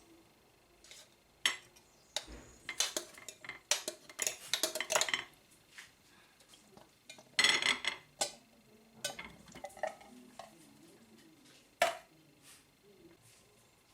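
Cutlery and dishes clinking and scraping in irregular bursts, with a sharp clink about twelve seconds in.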